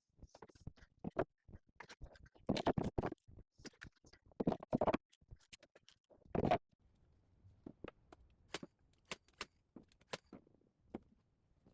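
Workshop handling sounds: a run of knocks, scrapes and clatter as timber and tools are moved and worked, with the loudest thump about six and a half seconds in, then a few sharp, spaced clicks.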